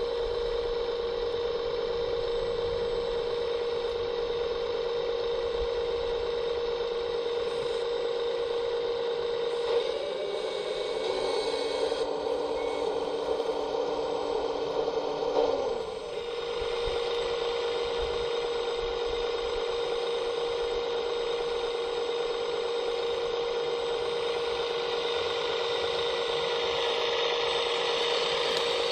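RC4WD Volvo EC480D scale model excavator running, with a steady pitched engine hum played through a small speaker. From about ten to sixteen seconds in, the sound roughens and an added lower tone comes in, which cuts off suddenly.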